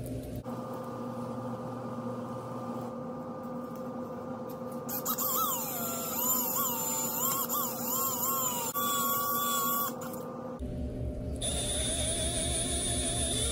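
Cordless drill spinning a brake cylinder hone inside the cast-iron tailstock bore of an Atlas lathe, lubricated with WD-40, with a steady high whine. From about five to ten seconds in, wavering squealing tones sound over the whine.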